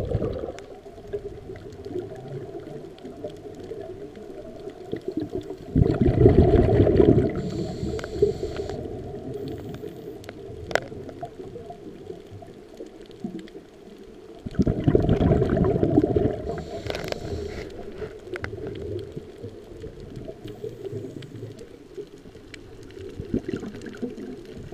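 A scuba diver breathing, heard underwater: two long bubbling rumbles of exhaled air from the regulator, about nine seconds apart, each followed by a short hiss. Between the breaths there is a steady low water wash with faint scattered clicks.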